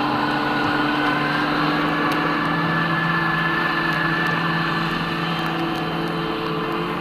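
A motor engine running steadily, its pitch drifting only slightly and its level easing off a little near the end.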